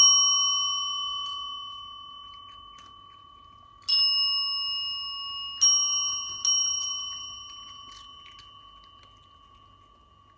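Chrome service bells on a table struck by a cat's paw: four dings, one at the start, one about four seconds in and two more close together around six seconds. Each dings sharply and then rings on, fading slowly.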